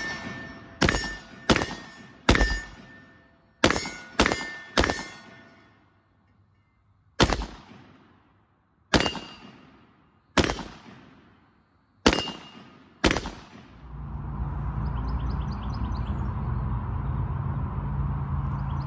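AR-15 in 5.56 NATO fitted with its stock flash hider, fired eleven single shots, each a sharp crack with a short fading echo. The first six come quickly, within about four seconds, and the last five are spaced a second or two apart. About fourteen seconds in, the shots give way to a steady low hum with hiss.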